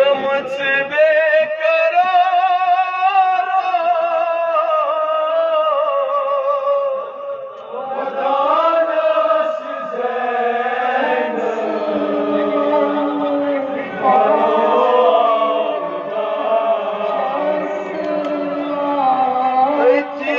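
A man chanting a Kashmiri noha, a Shia mourning lament, into a microphone. He sings long wavering held notes, with a short pause about seven seconds in.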